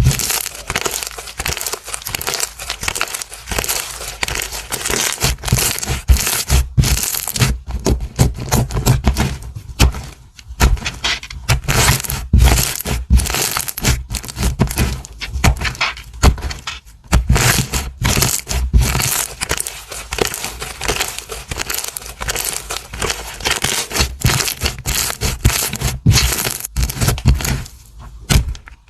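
Slime being squeezed and pressed by hand, giving a dense, continuous run of crackling and popping.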